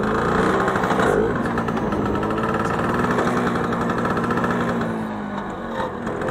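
A Bajaj Super scooter's two-stroke engine running while riding. It rises in pitch, drops sharply about a second in, holds steady, then eases off near the end.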